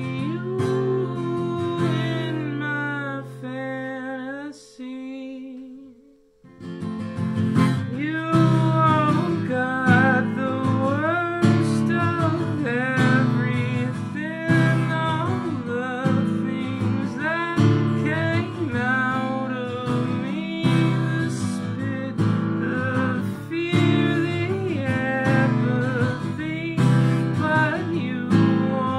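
A man singing to his own strummed acoustic guitar. The playing thins out and stops for a moment about six seconds in, then comes back in with fuller strumming and singing.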